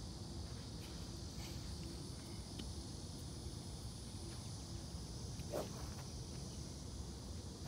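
A practice swing with a golf driver: one short swish as the club cuts through the air and brushes the turf, about five and a half seconds in. A steady high buzz of insects runs underneath.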